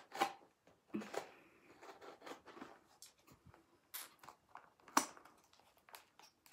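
A small cardboard box being handled and opened by hand: irregular rustles and scrapes of its flaps, with sharp clicks and taps, the loudest about a second in and about five seconds in.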